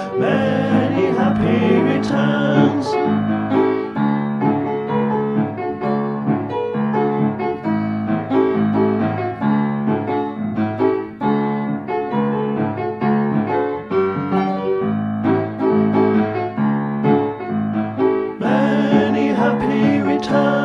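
Background song led by piano, with sung vocals in the first few seconds and again near the end, and a piano-led instrumental passage between.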